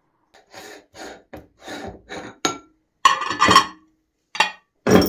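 A metal spoon scraping melted chocolate ice cream off the face of a metal meat grinder in a run of short strokes, then louder clanks and clinks of metal as the grinder's perforated plate is pulled off.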